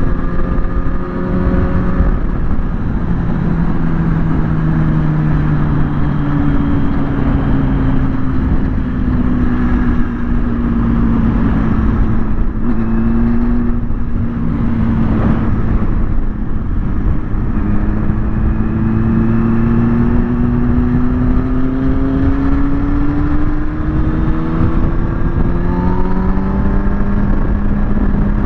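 Kawasaki ZX6R's inline-four engine under way, heard from the rider's position over a heavy rush of wind noise. The engine note sinks slowly through the first half as the bike slows. It then climbs steadily for about ten seconds as the bike accelerates, with a drop in pitch near the end, like an upshift.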